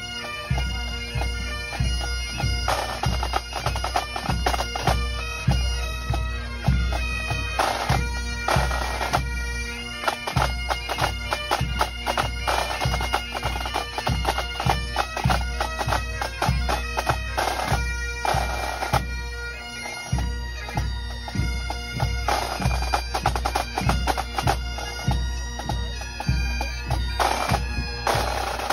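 Pipe band playing: Highland bagpipes carry the melody over their steady drones, with snare and bass drums keeping a regular march beat. The bass drum drops out briefly about a third of the way in and again about two thirds in.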